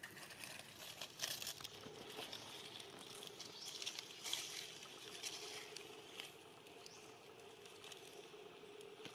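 Dry leaf litter and foliage rustling and crackling in scattered bursts as long-tailed macaques, a mother and her infant, shift about on the ground. The crackles are thickest in the first half and thin out toward the end.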